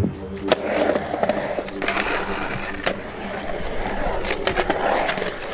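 Skateboard dropping into and carving a concrete bowl: wheels rumbling steadily on the concrete, with several sharp clacks from the board, the first about half a second in.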